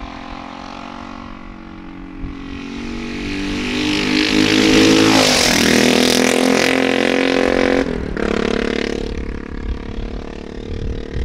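Custom BSA Scrambler 650's big single-cylinder engine revved through its full high-level scrambler exhaust, which is extremely loud. Engine speed climbs over a few seconds, holds high, then drops back toward idle about eight seconds in.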